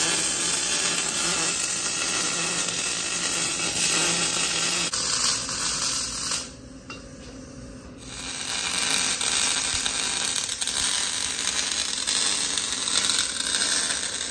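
Welding arc crackling steadily as a bead is laid on a steel axle truss. It stops for about a second and a half roughly six seconds in, then starts again for a second bead.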